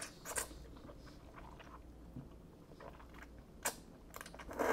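Instant ramen noodles being slurped up and chewed: a few short slurps, the loudest near the end, with quiet chewing between them.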